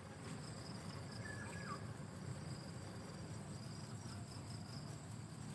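Steady high-pitched insect chirring, with a short, faint whistled note about a second in that falls in pitch.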